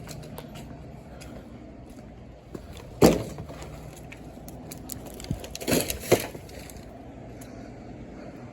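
Steady low background hum, with one sharp knock about three seconds in and a short cluster of knocks and clatter around six seconds.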